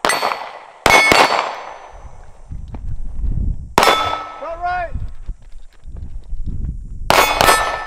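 Pistol shots at steel targets, each hit followed by the ringing clang of the steel plate: a single shot, a quick pair about a second in, one near the middle, and another quick pair near the end.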